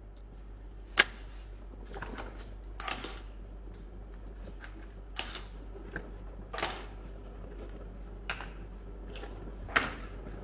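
Scattered clicks, knocks and rustles of objects being handled, with a sharp click about a second in and another near the end, over a steady low hum.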